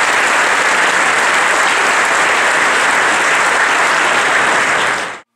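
Large crowd applauding, a dense steady clapping that cuts off abruptly near the end.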